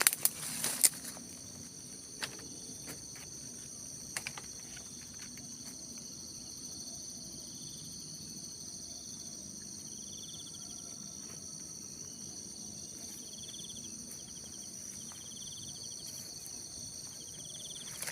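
Forest insects such as crickets or cicadas keep up a steady shrill chorus in several high bands. Short trilled calls sound a few times in the second half. A few sharp clicks and rustles come in the first seconds.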